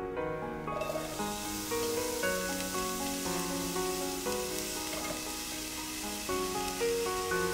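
Sliced green onions sizzling as they fry in a stainless steel pan, the hiss setting in about a second in, under steady background music.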